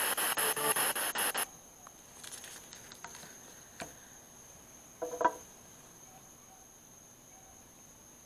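A spirit box sweeping through radio stations, giving rapid, evenly chopped bursts of static that cut off abruptly about a second and a half in as it is switched off. After that come faint clicks and rustles, a short pitched squeak about five seconds in, and a faint steady high whine.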